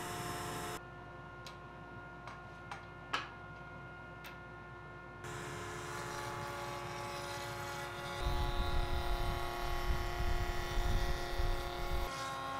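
Table-mounted router: a few light clicks and knocks of handling, then the router motor comes on abruptly about five seconds in and runs with a steady whine. From about eight seconds a board is fed along the fence through the spinning bit, adding a loud low rumble of cutting that stops shortly before the end.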